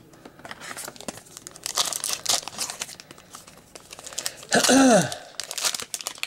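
Foil trading-card pack wrapper being torn open and crinkled by hand, a busy run of crackling and ripping. About four and a half seconds in comes a short grunt-like voiced sound falling in pitch, the loudest moment.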